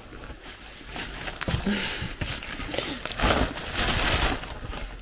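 A paper seed sack being cut open with a pocket knife and handled: irregular crinkling and rustling of the stiff paper, with a few sharp clicks.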